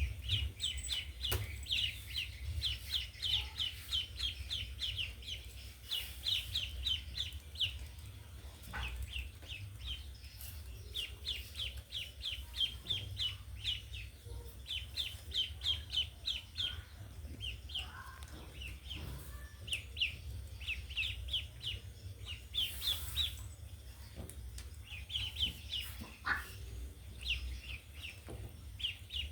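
Ducklings peeping in rapid runs of short, high calls, about five a second, with brief pauses between runs.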